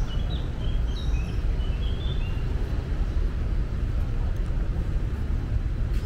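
Street ambience: a steady low rumble of traffic, with a run of short high chirps during the first two and a half seconds.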